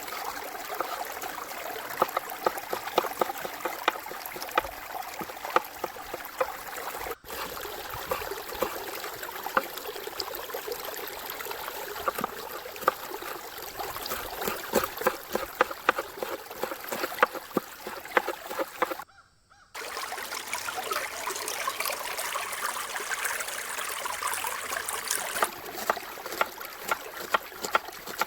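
Steady rush of flowing river water with dense small crackles and pops throughout, which fit a wood fire crackling. The sound breaks off briefly twice, once about a quarter of the way in and once about two-thirds through.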